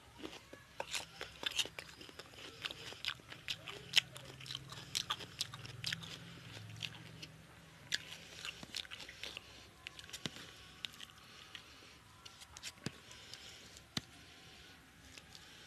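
Close-miked eating of curry and rice by hand: wet chewing and sharp mouth clicks, many in the first half and fewer later, with fingers mixing rice into the gravy on the plate.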